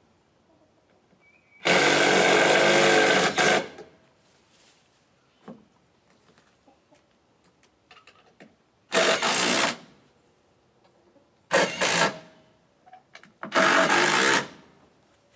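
Handheld power tool run in four short bursts on porch lumber: one about two seconds long near the start, then three shorter ones in the second half.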